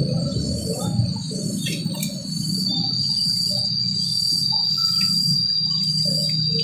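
Insects chirping over a steady high-pitched drone, with a very high pulse repeating about every two-thirds of a second and a low rumble beneath.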